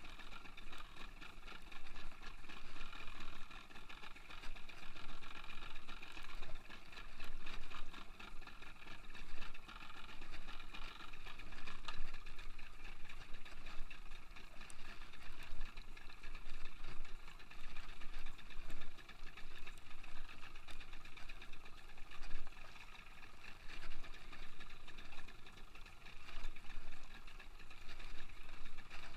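A boat engine running steadily, with an uneven rise and fall in loudness.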